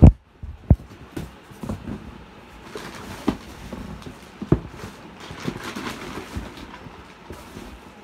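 Unpacking noises: plastic wrapping crinkling and scattered knocks and taps against a cardboard box as a bagged vacuum cleaner is handled, with a sharp thump at the very start.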